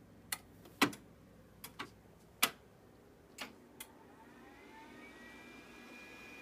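A few light clicks and knocks as power switches and buttons are pressed. Then, from about four seconds in, a desktop computer powering up: a whine that rises in pitch and settles into a steady high tone as its fan or drive spins up.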